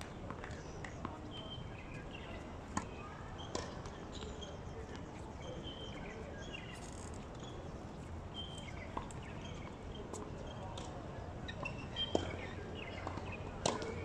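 Outdoor tennis court ambience: a few sharp pops of tennis balls being bounced and struck, with short high bird chirps scattered throughout.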